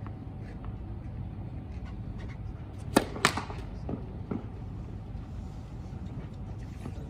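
Tennis ball impacts on a clay court: two sharp whacks about a third of a second apart, then two fainter knocks, over a steady low background hum.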